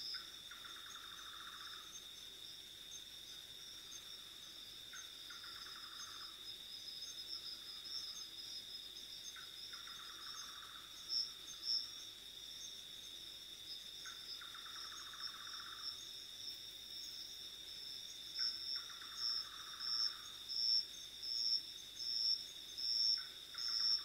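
Night-time insect chorus: a steady high cricket trill with a faster pulsing trill above it. A lower pulsed call, about a second long, repeats every four to five seconds.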